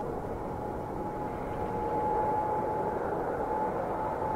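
Twin-engine widebody jet airliner on its takeoff roll, engines at high power: a steady jet roar with a steady whine riding on it, growing gradually louder.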